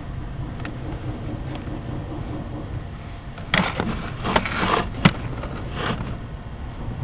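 A steady low rumble with a cluster of loud bangs and scraping clatter about halfway through, three of them sharper than the rest. Heard as unexplained banging, neither thunder nor a plane.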